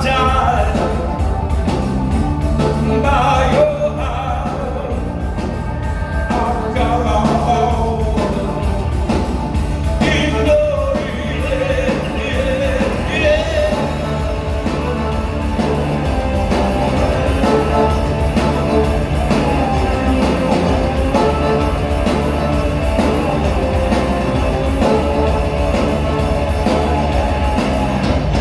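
Live rock band playing a song with a singer's voice, loud and steady, the voice most prominent in the first half.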